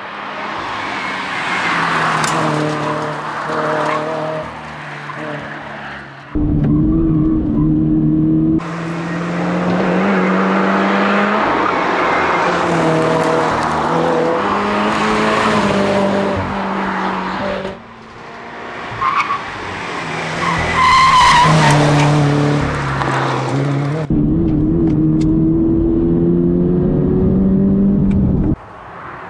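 Toyota GR86's flat-four engine breathing through a Fujitsubo A-RM single-exit exhaust, revved hard and shifted up and down through the gears while being driven fast. There is some tyre squeal in the corners. The sound cuts back and forth several times between roadside pass-bys and the louder, denser in-car recording.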